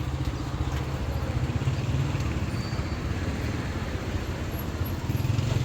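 Engine running steadily with a fast low throb.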